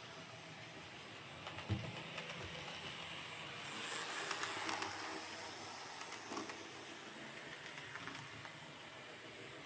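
OO gauge Oxford Rail Adams Radial model tank engine running along the layout track, its small DC motor and wheels making a steady running noise that swells and fades around the middle. A sharp click comes a little under two seconds in.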